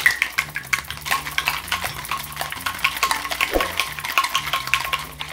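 Ice cubes rattling rapidly inside a stainless steel cocktail shaker being shaken hard to mix a creamy drink.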